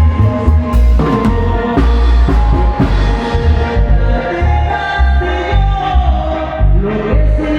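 Live tierra caliente band music: sustained melody lines over a heavy, pulsing bass beat with drums.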